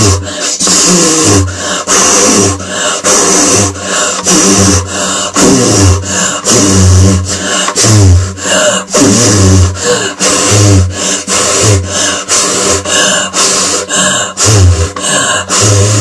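A woman's rhythmic vocal and breath sounds, a steady pulse of low surges with gliding pitched tones above them.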